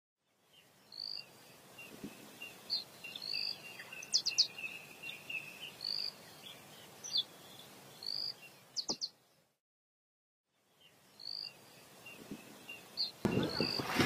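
Birds calling again and again, short whistled notes and quick trills, over a thin steady high tone. The sound cuts out for about a second past the middle, then resumes. Near the end a loud rush of splashing water begins.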